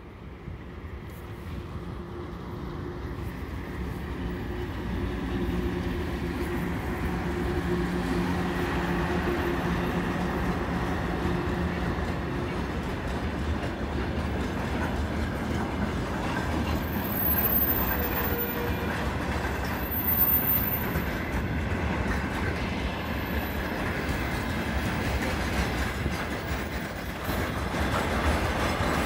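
VL11M electric locomotive approaching and passing at the head of a freight train, growing louder over the first several seconds, with a steady hum as the locomotive goes by. Then the tank wagons roll past, their wheels making a continuous rumble and clickety-clack over the rail joints, with a few brief high squeals.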